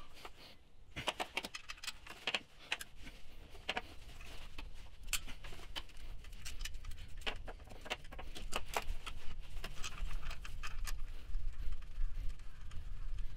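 Irregular metallic clicks and clinks of a ratchet and 10 mm socket working on a bolt of the cast aluminium upper timing cover of a Renault D4F petrol engine.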